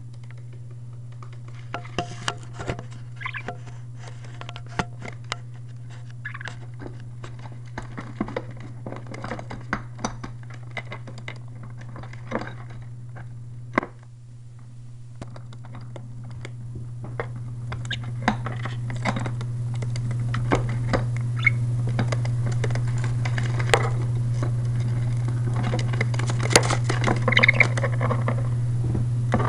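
Pet budgies scrabbling, pecking and scratching: many small irregular clicks and scratches, over a steady low hum that grows louder about halfway through.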